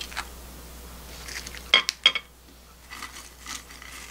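Two sharp clicks a little under two seconds in: chopsticks knocking against a plate as they are set down. Around them are soft rustles and light taps as crisp breaded chicken cutlets are handled and arranged on a plate.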